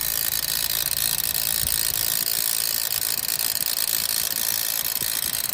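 Suzuki Swift's Panasonic AC compressor running with the AC on, giving a steady mechanical noise with a fine, fast, even flutter. It is the bad compressor noise that the mechanic replaces the compressor for.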